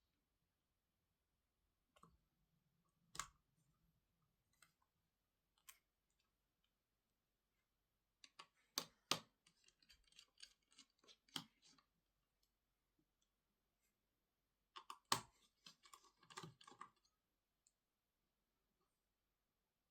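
Scattered small clicks and light knocks of tools and parts being handled while working on a MacBook Pro laptop, with a busier run about eight seconds in and another about fifteen seconds in.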